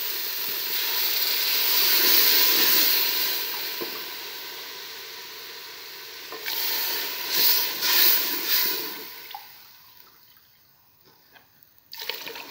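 Peas, onion and spices sizzling in hot oil in an aluminium pot, then water poured in from a glass about six seconds in, hissing and spitting in several surges before dying down to near quiet.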